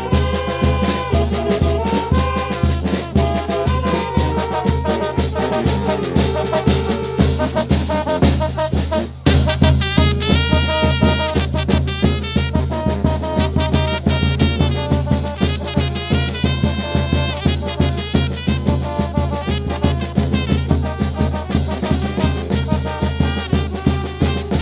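Brass band music with a steady, pulsing bass beat under trumpet and trombone lines; about nine seconds in it drops briefly, then comes back fuller.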